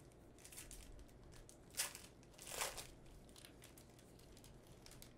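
A trading-card pack wrapper being torn open and handled: faint rustling, with two louder crinkles a little under a second apart about two seconds in.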